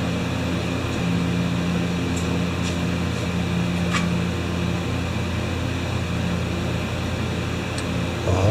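A steady mechanical hum with a low drone, with a few faint clicks.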